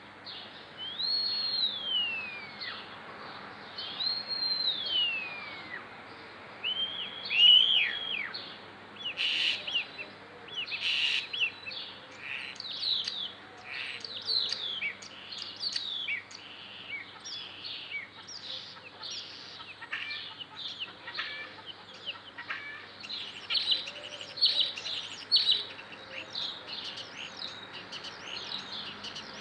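European starling singing: two long whistles that rise and then slide down in the first five seconds, then a fast, varied run of chirps, clicks and rattles. The starling is mimicking, working in chicken-like sounds.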